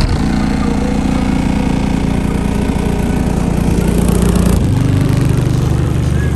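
Bass-heavy music from Crossfire C7 15-inch car subwoofers, heard from outside the closed truck: deep held bass notes that change about four and a half seconds in, with little treble coming through. The subwoofers are being played hard to break them in.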